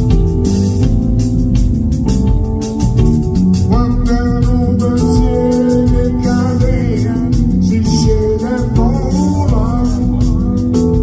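Live band playing, with drums, bass and an organ-like keyboard, heard loud through the concert PA. A wavering lead melody comes in about four seconds in.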